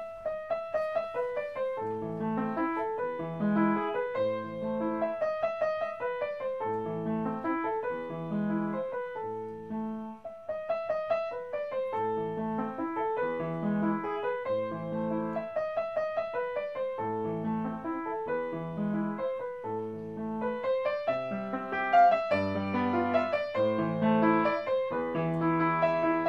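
Piano music: a melody of single notes over a repeating pattern of low chords.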